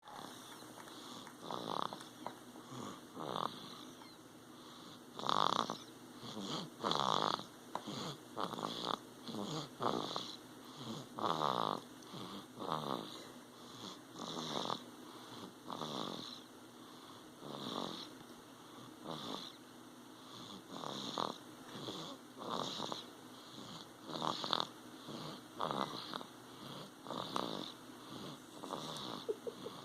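A sleeping baby snoring in a quick, uneven run of short snoring breaths, about one a second.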